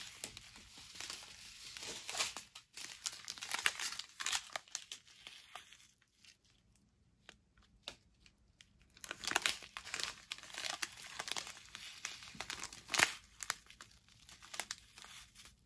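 Clear plastic bags of diamond painting drills crinkling and rustling in irregular strokes as they are handled, with a quieter spell of about three seconds near the middle.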